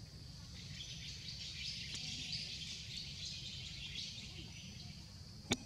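Forest ambience: a steady high-pitched chorus of chirping with a low rumble beneath, and one sharp click near the end.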